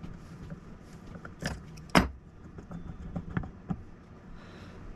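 Metal clicks and knocks as a tool works the threaded clutch of an old Craftsman chainsaw loose and the clutch is lifted off the crankshaft. A handful of sharp clinks, the loudest about two seconds in.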